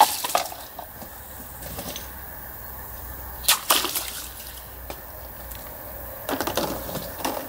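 A soft stainless-steel kitchen knife slashing through water-filled plastic bottles: a sharp crack as the blade cuts the plastic at the start and again about three and a half seconds in, with water splashing out.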